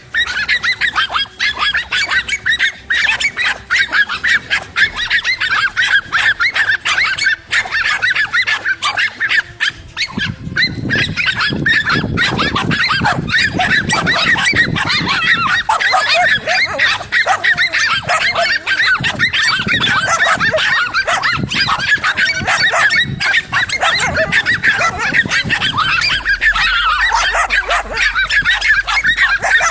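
A pack of dogs barking rapidly and without pause, many high barks overlapping, as they hold a cornered lizard at bay. About ten seconds in, the barking grows louder and fuller, with deeper barks joining.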